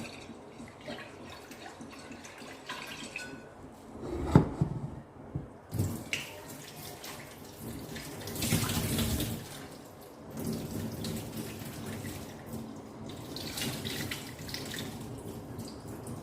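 Tap water running into a pot of rice at the kitchen sink, swelling and easing as the rice is rinsed to wash off its starch. A single sharp knock about four seconds in, before the water starts.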